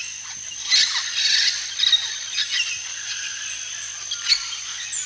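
Tropical forest ambience: birds give short chirps and calls, the loudest about a second in, over a steady high insect buzz.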